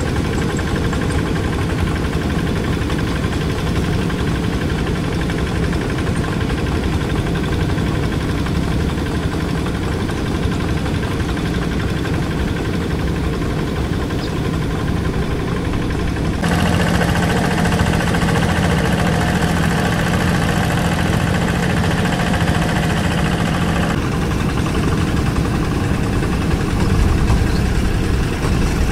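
Quick two-wheel tractor's Kubota diesel engine running steadily while the tractor works through wet paddy mud. About halfway through the sound abruptly turns brighter, with a stronger hum, then drops back again some seconds later.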